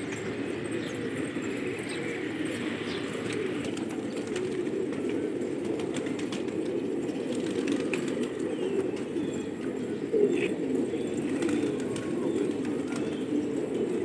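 A flock of domestic gola pigeons cooing: a steady low chorus of many overlapping coos, with a few faint higher chirps above it.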